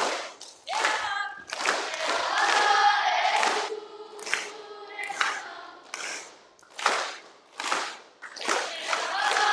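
A group of children's voices chanting in unison in short, sharply accented phrases, with a longer held phrase about two seconds in and again near the end.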